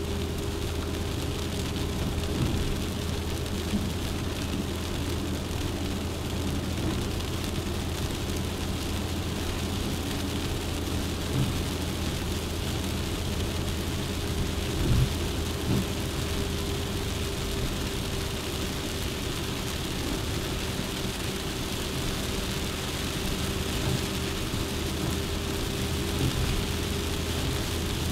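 Suzuki Jimny's engine and road noise heard inside the moving car: a steady engine drone with a constant hum of tyres on the road, broken by a few short thumps, the clearest about halfway through.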